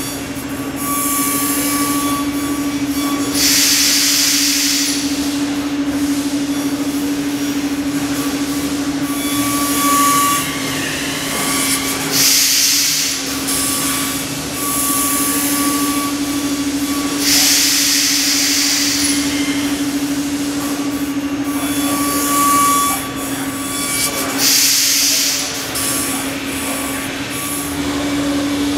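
A 5-axis CNC machining center's spindle runs with a steady whine while cutting foam tooling board. Loud bursts of hiss lasting a second or two come and go several times.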